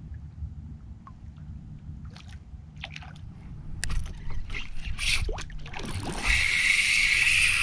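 Hooked fish thrashing and splashing at the water's surface, then a steady buzzing whir from the fishing reel for about a second and a half, cutting off suddenly near the end.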